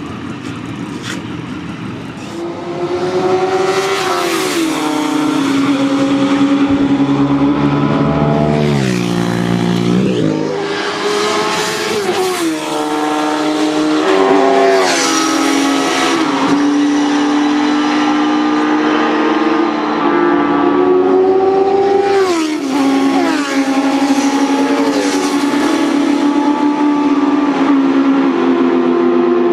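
Sport motorcycle engines accelerating hard on a race track, their pitch climbing and then dropping sharply at each upshift, again and again, with stretches held at steady high revs. The sound gets louder about two and a half seconds in.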